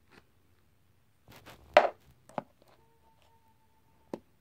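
Small objects being handled and set down on a table: a loud clatter about a second and a half in, then two sharp knocks, with a faint steady tone between the knocks.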